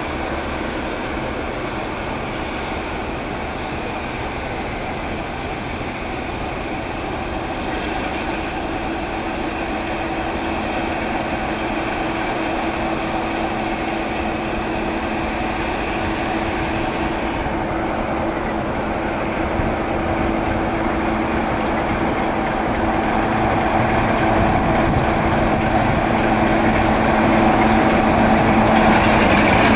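BR Class 45 diesel locomotive 45132, its Sulzer twelve-cylinder twin-bank engine working steadily as it hauls a passenger train away from a stand. It grows louder as it approaches and is loudest near the end as it comes close.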